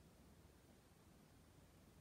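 Near silence: faint room tone with a steady low hiss.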